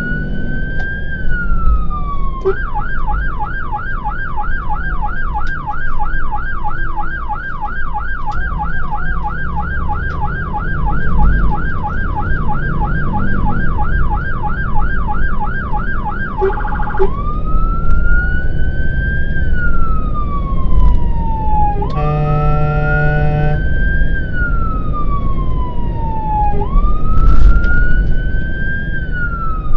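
Fire engine's electronic siren heard from inside the cab over engine and road rumble. It plays a slow wail rising and falling over about two to three seconds, switches a few seconds in to a fast yelp of about three sweeps a second for some fourteen seconds, then goes back to the wail. A horn blast lasting about a second and a half comes about three-quarters of the way through.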